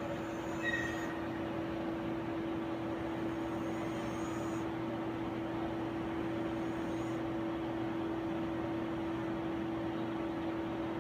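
Steady machine hum from a TA Instruments AR2000EX rheometer and the lab equipment around it, with one constant mid-pitched tone, while the upper plate is lowered onto the sample. A short high beep about a second in.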